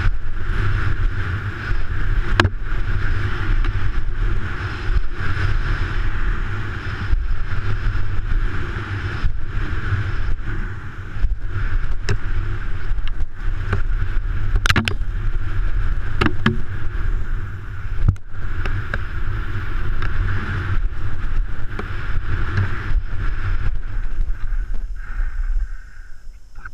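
Mountain bike riding fast down a rough dirt trail: a continuous rush of wind and tyre noise with a low rumble, broken by frequent sharp knocks and rattles from the bike over bumps. The rush eases and gets quieter near the end as the bike slows.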